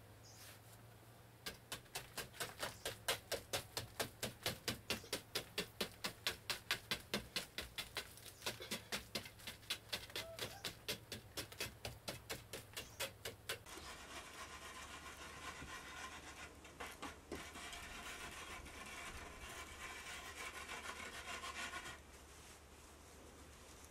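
A stick scraping quick, rhythmic strokes, about four a second, against the dried-mud fireplace mantel, knocking dust down. Partway through this gives way to a steadier rubbing of a hand over the mud surface, which stops suddenly near the end.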